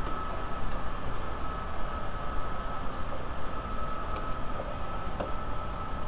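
Steady background hiss with a thin high whine running under it. A few faint light clicks come about four and five seconds in, as hand tools work the small metal C-clips on the wiper linkage.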